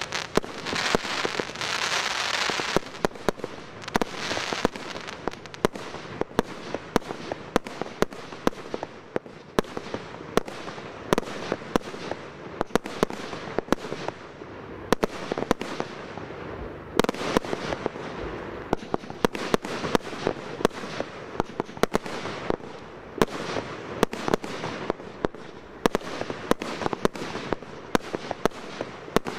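Fireworks display: aerial shots bursting in a steady, irregular run of sharp bangs, often a couple a second. A dense hiss sits under the bangs for the first few seconds.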